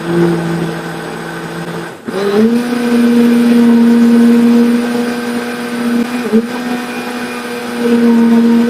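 Mondial Turbo Power electric blender motor running on a low speed, then switched up about two seconds in. Its hum rises in pitch and gets louder, then runs steadily at the higher speed.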